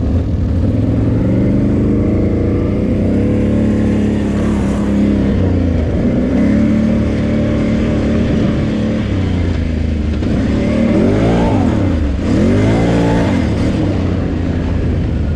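Can-Am Renegade 800 quad's V-twin engine running steadily under way, then revving up and back down twice in quick succession about two-thirds of the way in.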